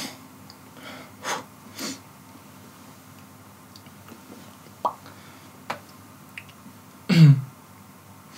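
A man's breaths and sniffs, a few faint clicks, and near the end one short, loud throat sound, a burst that drops in pitch.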